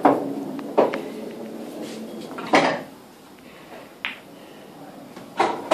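Pool balls and cue on an English pool table: about five separate sharp clacks and knocks a second or more apart, several with a short ring after them, the last near the end.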